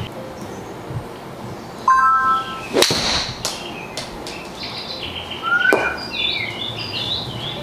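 A golf club strikes a ball off a hitting mat with one sharp crack a little under three seconds in, just after a short electronic tone. Birds chirp on and off around it.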